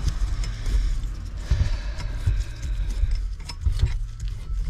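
C-clamp valve spring compressor being slowly unscrewed on a Honda XR200 cylinder head to release a valve spring: scattered light metallic clicks and knocks over a steady low rumble.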